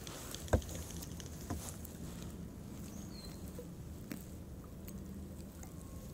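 Water dripping and pattering off a kayak paddle during strokes, with a few light knocks, the sharpest about half a second in.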